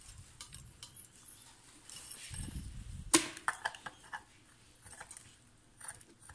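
Gold-coloured metal tubes clinking and tapping against each other and a round metal base as they are handled and fitted together. One sharp clink about three seconds in, followed quickly by a few lighter taps.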